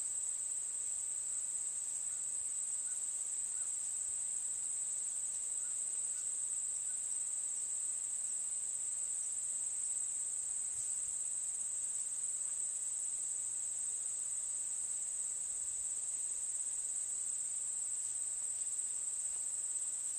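Steady, high-pitched insect chorus, unbroken and even in level.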